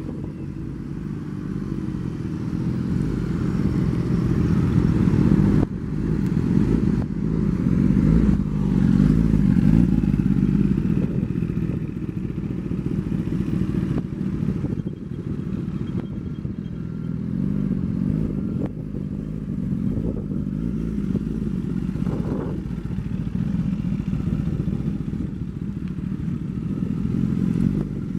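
Motorcycle engines running at low speed, the throttle opening and easing off during slow, tight manoeuvring, swelling louder a few times.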